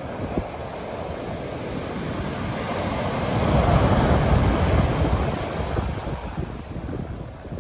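Ocean surf: a wave swells, breaks and washes out, loudest about halfway through and fading near the end, with wind buffeting the microphone throughout.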